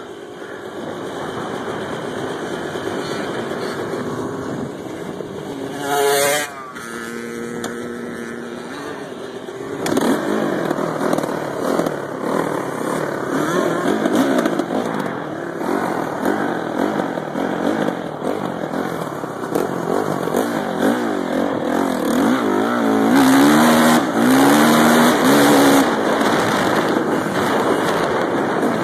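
Dirt bike engine being ridden, its pitch rising and falling with the throttle. There is a sharp loud rev about six seconds in, and the loudest revving comes near the end.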